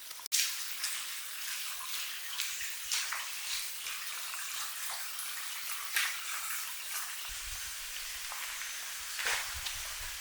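Running water trickling steadily, with scattered sharp clicks; a low rumble joins it for the last few seconds.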